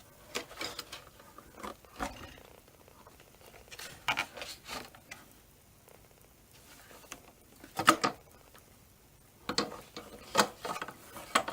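Hard plastic headlight parts being handled and fitted together: intermittent clicks, knocks and scrapes in short clusters, with quiet gaps between, the sharpest about eight seconds in.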